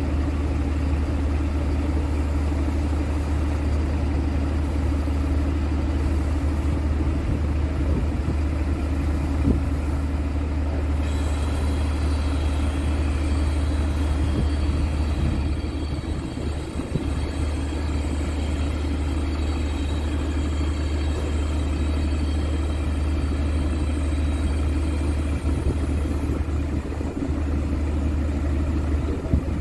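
Scania P380 truck's diesel engine idling steadily with a deep, even rumble. A faint high whine joins about a third of the way in.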